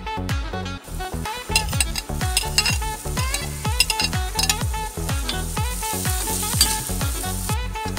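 Garlic and chopped red onion sizzling in hot oil in a stainless steel pan while a metal spatula stirs and scrapes them. The sizzle comes in about a second in and cuts off near the end, over background music with a steady beat.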